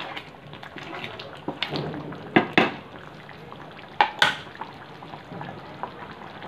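Thick coconut curry bubbling at a simmer in a nonstick pan while a wooden spatula stirs it, with two pairs of sharp knocks, about two and a half and four seconds in.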